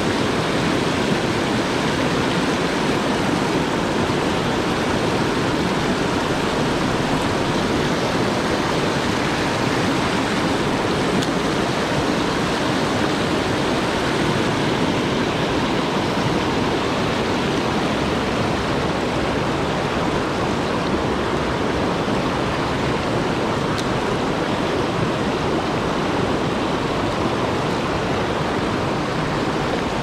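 Mountain stream running fast over rocks and small cascades: a steady rush of whitewater.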